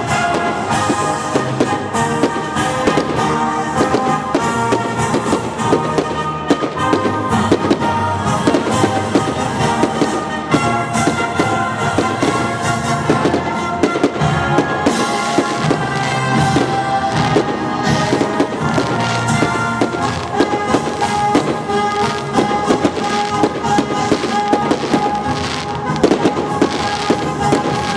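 Aerial fireworks bursting in rapid, continuous succession, many bangs and crackles one after another, over music.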